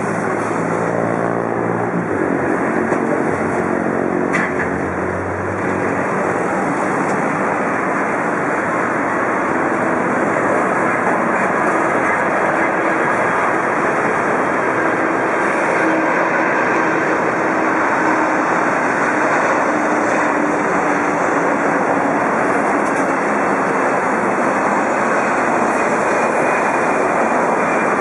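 Airbus A300-600R twin-turbofan airliner on final approach with gear down: a steady jet noise that grows slightly louder as it comes nearer. A lower hum of tones steps down in pitch during the first few seconds.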